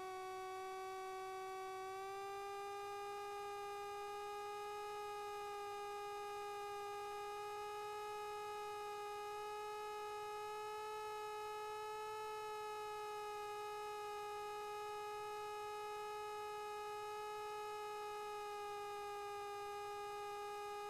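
Light aircraft's engine and propeller droning steadily as one pitched tone with strong overtones, rising slightly in pitch about two seconds in.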